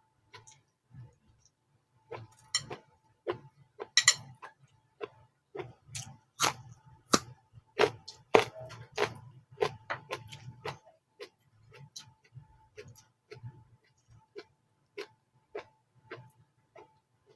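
Close-miked eating of fried noodles: irregular sharp mouth clicks and chewing, about one or two a second, busiest in the middle.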